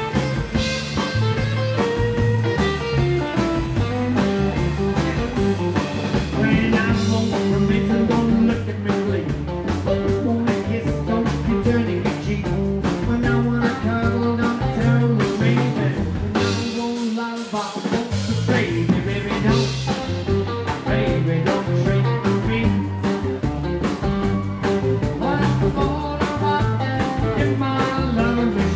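Live rockabilly band playing: electric guitar over acoustic rhythm guitar, upright double bass and drum kit. The bass and drums drop out briefly just after halfway, then the full band comes back in.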